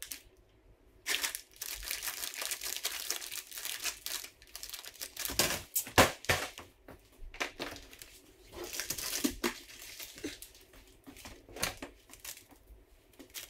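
Plastic snack bags of chips and popcorn crinkling as they are handled and set into place, with scattered clicks and a sharp knock about six seconds in.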